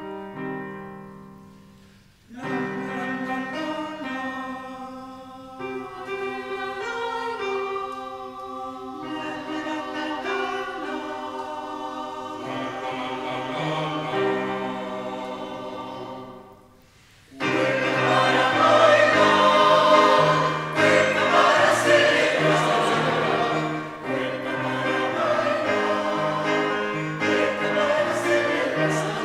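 A small mixed choir sings a choral arrangement of a cueca, accompanied by an electronic keyboard. An opening keyboard note fades, and the singing starts about two seconds in. It breaks off briefly around seventeen seconds and resumes louder and fuller.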